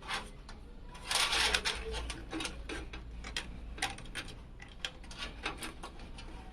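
Irregular clicks, taps and small knocks of PC hardware being handled and fitted into a steel case, with a louder scraping rustle about a second in.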